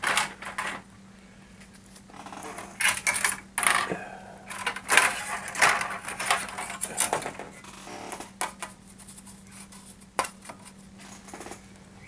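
PlayStation 5 plastic housing and parts being handled and set down on a work mat: irregular clicks, knocks and short plastic clatter and rustling, over a faint steady hum.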